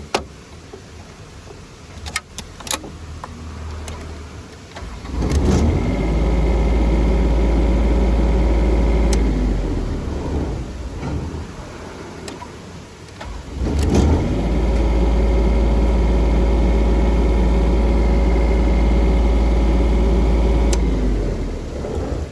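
Diesel engine of a Denyo DAT-270ES2 engine welder-generator, running quietly, then twice picking up to a loud, steady high-speed run with a strong low hum for several seconds before dropping back.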